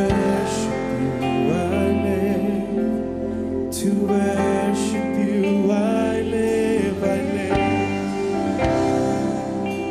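Live worship band music with guitar, sustained chords and swelling cymbals, and a wavering melodic line over it.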